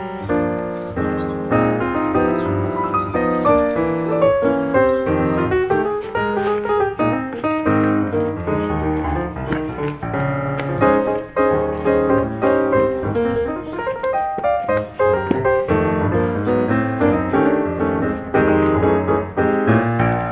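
Background piano music: a lively melody over chords.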